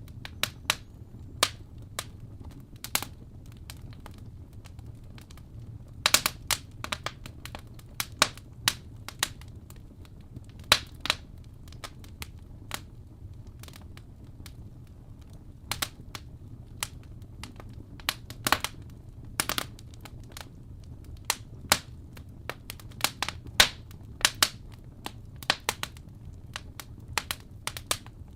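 Wood fire crackling: irregular sharp pops and snaps, sometimes several in quick succession, over a low steady rumble.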